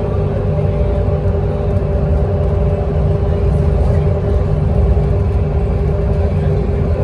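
Transit bus cruising at freeway speed, heard inside the cabin: a steady, loud low rumble of engine and tyre noise with a constant droning hum over it.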